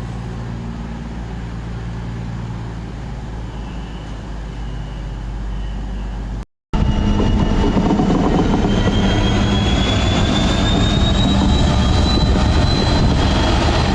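A train running with a steady low hum. After a sudden cut, a louder train sound with a high whine that slowly rises in pitch.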